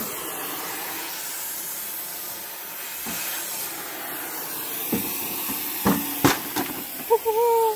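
Oxy-fuel cutting torch hissing steadily as it cuts through rusted bolts on a steel trailer frame. A few sharp metal knocks come about five and six seconds in, and a brief loud tone sounds near the end.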